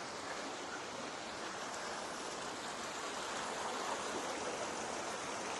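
Water at a canal lock rushing steadily.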